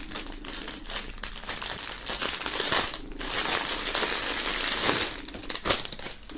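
Clear plastic film wrapped around a rolled fabric flag crinkling in irregular bursts as the package is handled and turned in the hands.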